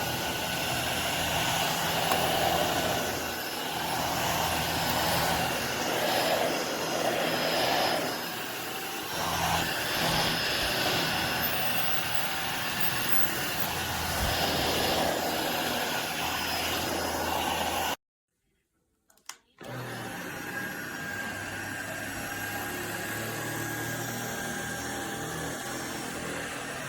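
Tineco Pure ONE S11 cordless stick vacuum running, a steady motor whine with the suction noise swelling and easing as it works. The sound cuts out completely for about a second and a half about 18 s in, then the vacuum is heard running again.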